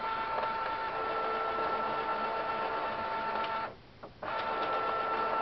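Canon imageCLASS MF4880dw laser all-in-one's automatic document feeder pulling the originals through and scanning them for a copy: a steady motor whine with two pitches. It stops for about half a second roughly four seconds in, then starts again.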